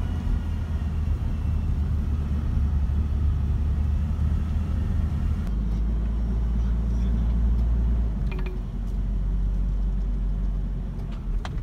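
Campervan engine and road noise heard from inside the cab, a steady low rumble. About halfway through it shifts lower as the van slows into a car park.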